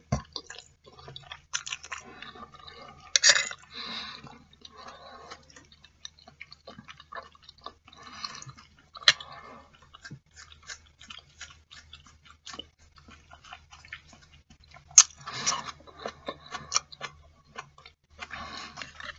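Close-up chewing of a mouthful of black bean noodles (jajangmyeon): irregular small clicks and mouth sounds, a few louder than the rest, over a faint low hum.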